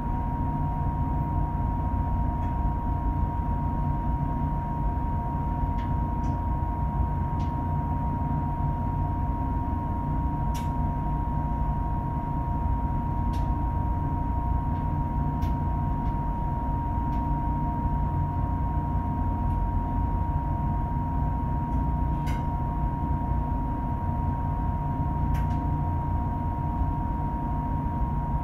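Steady low engine drone with a constant high-pitched hum over it, as heard on board a boat under way, with a few faint clicks.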